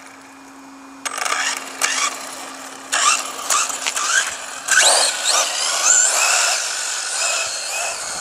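Electric motor of a LiPo-powered RC car whining as it is driven, starting about a second in and rising in pitch in several bursts of throttle.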